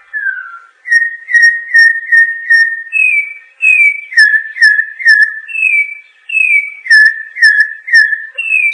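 Campo troupial (corrupião) singing: a long run of clear whistled notes, each sliding slightly downward in pitch, about two a second, some pitched a little higher than the rest.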